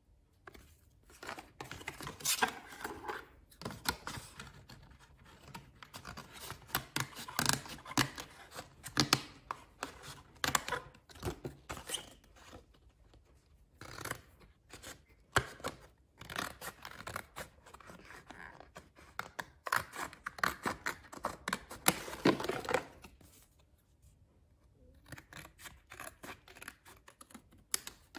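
Scissors cutting through a thin printed cardboard box in a long series of sharp snips and crunches, coming in bursts. The snips fall quiet for a moment a little before the end, then resume more softly.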